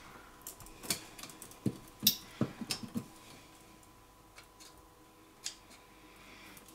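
Small, irregular clicks and light knocks of a flat screwdriver working against the plastic and metal of a wall light switch's terminals, a cluster in the first three seconds and one more later on.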